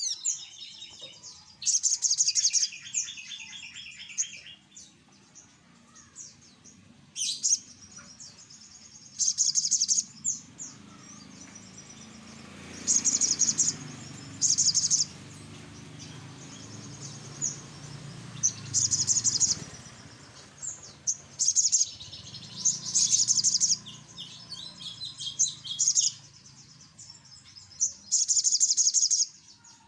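Brown-throated sunbird (sogok ontong) calling loudly: repeated bursts of sharp, high chirps, each about a second long, some with quick lower trills.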